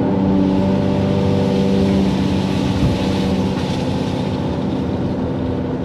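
Excavator's diesel engine running steadily under load, with a brief rise in hiss about three seconds in.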